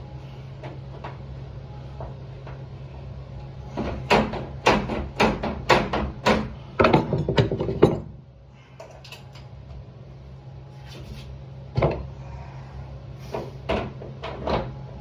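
A quick run of sharp clicks and knocks from door hardware being handled, about four seconds in and lasting several seconds, then a single knock and a few lighter clicks near the end, over a steady low hum.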